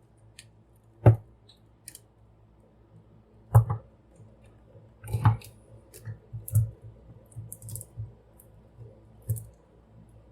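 Plastic clicks and knocks from handling and posing an action figure. Three sharper knocks come about a second in, at three and a half seconds and at five seconds, followed by lighter scattered clicks.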